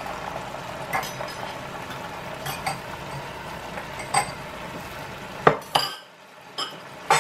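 Beaten eggs going into a hot frying pan beside a second pan of bubbling sauce: a steady frying hiss that drops away about six seconds in, with a series of sharp clinks of a ceramic bowl and utensils against the pans, the loudest two about five and a half seconds in.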